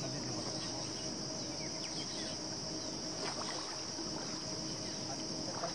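Steady, high-pitched drone of insects, cicadas or crickets, with a faint steady low hum beneath it and a few faint short chirps.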